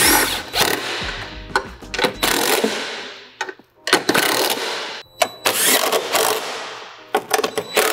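Cordless power driver run in several short bursts, driving in the fastening bolts of a muffler-delete exhaust pipe, over background music.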